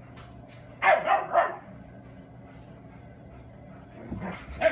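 Dogs barking in play: a quick run of three barks about a second in, then more barks near the end.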